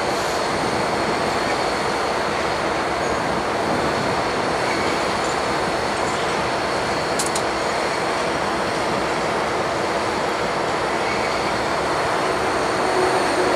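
A freight train of covered hopper cars rolling past on yard track: steel wheels running steadily on the rails.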